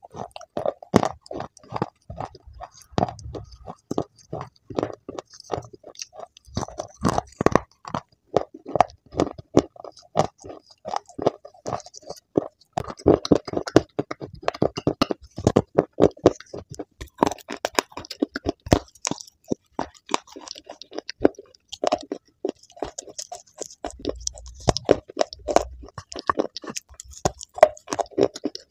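A person crunching and chewing dry clay chunks close to a clip-on microphone: crisp crunches come several a second, with short pauses between bites.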